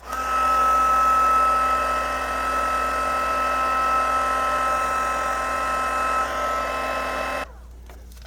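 Heat embossing gun switched on, its fan motor running with a steady high whine, melting embossing powder; it cuts off abruptly about seven and a half seconds in.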